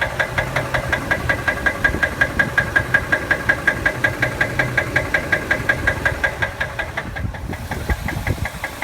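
Ford 5.4-litre Triton V8 engine running with a steady, rhythmic knock, about six knocks a second: rod knock, by the owner's diagnosis.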